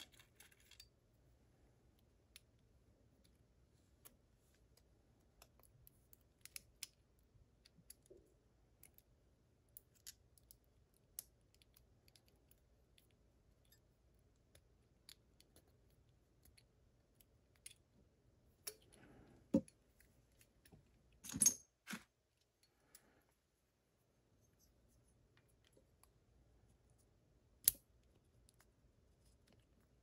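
Small metal clicks and taps from a Łucznik E8 lock's plug, housing and a shim being handled during reassembly. Faint, scattered ticks, with a few sharper clicks near the 20-second mark and again near the end.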